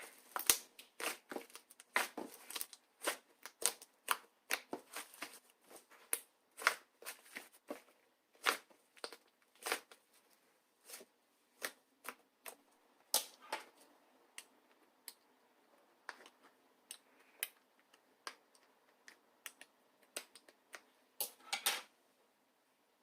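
Close-up handling sounds: an irregular string of crisp clicks, taps and light crinkling rustles. They come thick for the first dozen seconds, thin out, then bunch together again shortly before the end.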